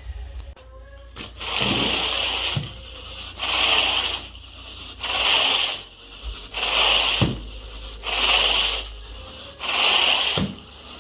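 Carpet grooming rake dragged through the carpet pile in six strokes, about one every second and a half, each a scratchy brushing sound, some with a soft thud as the head is set down. This is grooming the carpet pile after a low-moisture cleaning.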